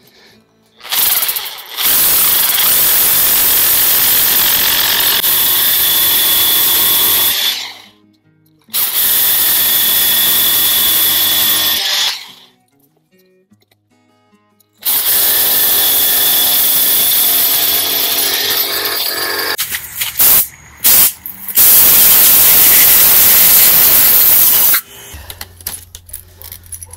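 Makita rotary hammer drilling half-inch anchor-bolt holes into a concrete slab, running loudly in four runs of several seconds with short pauses between. Near the end the drilling stops and only light handling sounds remain.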